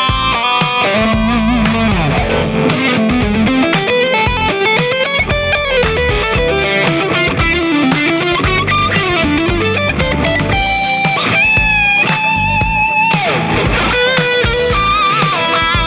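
Yamaha Pacifica 212 VFM electric guitar played through a Valeton Dapper amp mini, improvising a solo lead line of fast single-note runs with string bends and vibrato. Around the middle it settles into a few long held, wavering notes before the runs resume.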